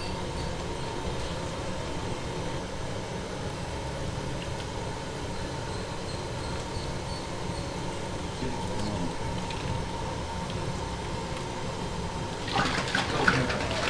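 Steady low rumbling background noise with a faint constant hum, and a short spell of louder, rough noise near the end.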